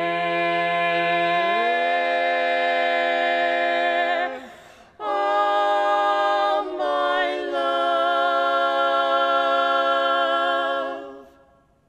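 Barbershop quartet of two male and two female voices singing a cappella, holding a long four-part chord on the word 'care', with the lowest voice sliding up about a second and a half in. After a short break about four seconds in, a second long chord is held and dies away near the end.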